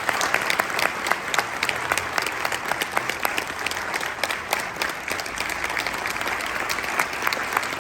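A large audience applauding, dense and steady clapping without a break.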